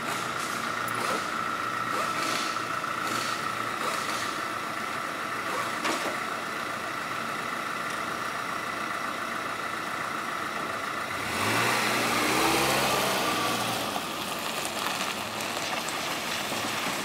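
Motor vehicle engines running, with a steady high whine. About eleven seconds in, a vehicle accelerates: its engine rises in pitch and the noise swells for a few seconds before easing off.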